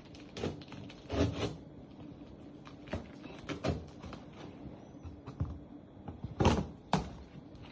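Handling noises from unboxing a car taillight: a string of irregular knocks, scrapes and rustles from the part and its packaging being moved, the loudest two about six and a half and seven seconds in.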